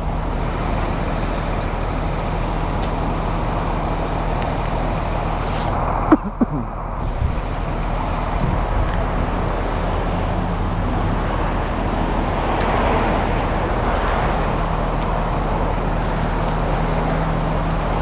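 Caterpillar C7 7.2-litre turbo diesel of a Blue Bird All American school bus idling steadily, with one sharp knock about six seconds in.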